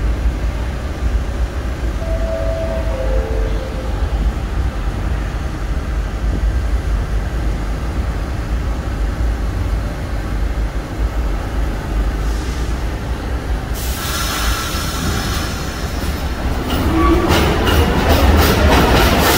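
Subway train standing at an underground platform with a steady low rumble and a short descending chime about two seconds in, then pulling out: a sudden hiss near the end, a rising motor whine and wheels clicking over the rail joints as it gets louder.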